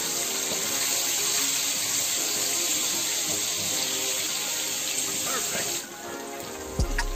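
Sliced onion sizzling in hot oil in a wok, an even hiss that drops off sharply about six seconds in. Soft background music plays underneath.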